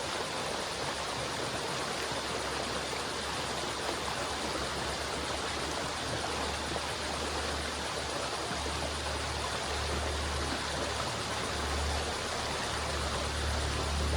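River water flowing steadily, a continuous rushing wash. A low hum underneath comes and goes and grows louder in the second half.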